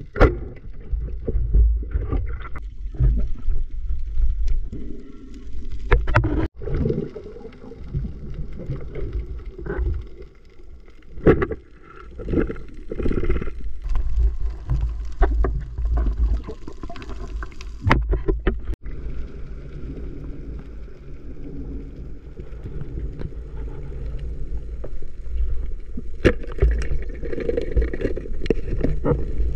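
Muffled underwater sound from a camera in a waterproof housing: a steady low rumble with gurgling water movement, broken by a handful of sharp clicks and knocks.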